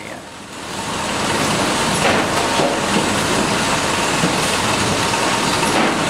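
Sawmill conveyor machinery carrying sawn timber planks, running with a loud, steady mechanical noise that builds over the first second. A few faint knocks stand out.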